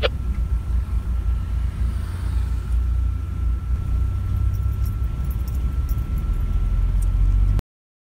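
Low rumble of a car driving, heard from inside its cabin, with a thin steady whine above it; it cuts off suddenly near the end.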